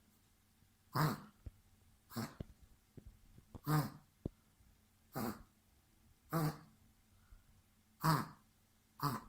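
Dog coughing: a series of seven coughs, about one a second, that sound as if the dog were choking. The vet took it for a cough, not choking, and treated it with syrup.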